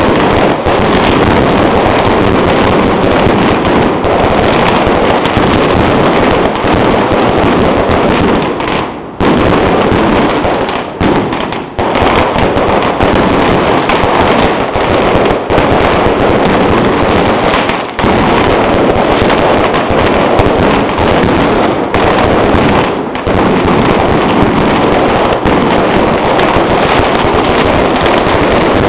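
Fireworks going off in a dense, continuous barrage of bangs and crackling, loud throughout, with a few brief lulls.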